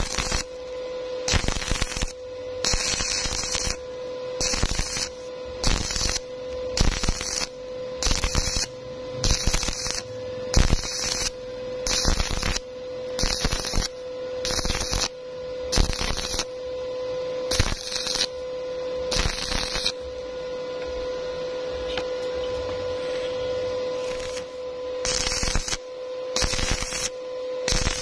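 Stick-welding arc crackling in short repeated bursts, about one every second and a half, as the arc is struck and broken again and again while a poor weld on square tube is built up. About two-thirds of the way through there is a longer stretch of steadier noise. A steady hum runs underneath.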